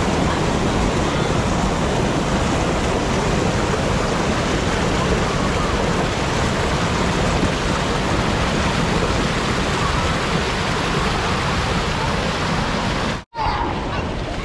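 River water pouring over a low concrete weir into a churning whitewater pool: a loud, steady rush. About 13 seconds in it cuts off suddenly and gives way to a quieter flowing-river sound.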